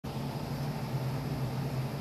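A steady low hum over a constant hiss, with no change in level.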